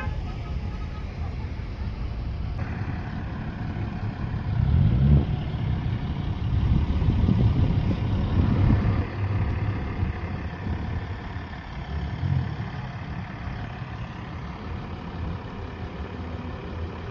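Cars and pickup trucks driving slowly past at close range, engines running with a steady low rumble that swells from about four to nine seconds in as a car passes right by.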